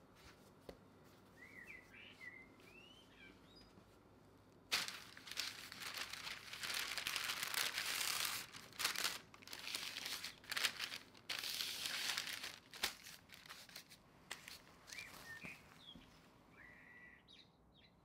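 Baking paper crinkling and rustling loudly for about eight seconds, starting sharply about five seconds in, as dough is handled on it. Small birds chirp faintly before and after.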